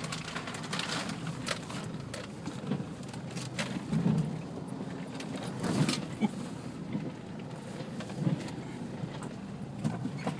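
Off-road 4x4 engine running low and steady while the vehicle crawls over a rough, rutted dirt track, heard from inside the cabin, with frequent knocks and loose rattles as the body jolts over the ruts.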